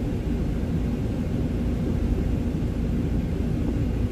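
Steady low rumble of a semi truck's diesel engine, heard from inside the cab as the truck moves slowly.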